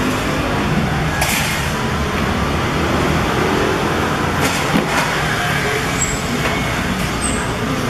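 SYM Duke scooter engine running steadily, with a few sharp clicks or knocks about a second in and again around the middle.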